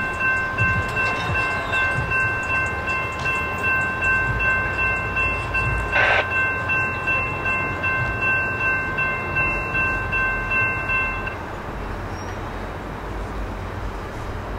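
Freight locomotive air horn, several chimes sounding together in one long steady blast that cuts off about eleven seconds in. A low rumble runs underneath and continues after the horn stops.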